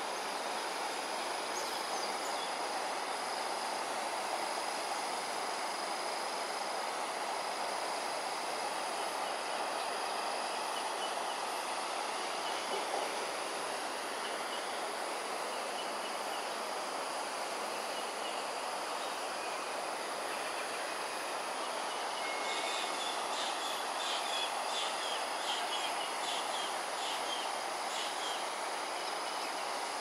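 Steady outdoor background hum with a constant high insect drone. Through the last third, birds chirp in quick short calls.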